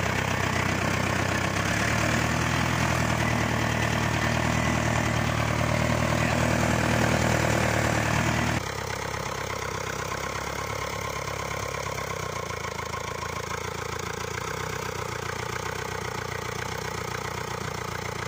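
1950s Nuffield Universal 4 tractor's four-cylinder diesel engine running, loud and close from the driver's seat beside the exhaust stack. About eight and a half seconds in it becomes suddenly quieter and settles into a steady idle.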